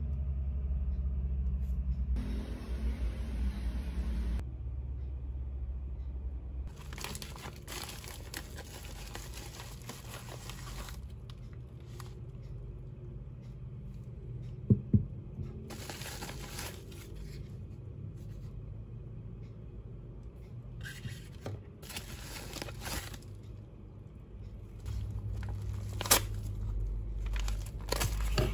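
Packaging being handled and opened: a plastic bubble mailer and a kraft paper padded mailer crinkling and rustling in several spells, with two sharp clicks about halfway through.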